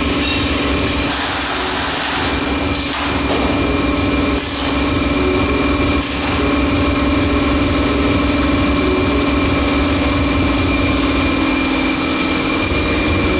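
Automatic carton erecting and tape-sealing machine running: a steady motor hum with a high, constant whine, and several short bursts of hiss in the first half as a carton passes through.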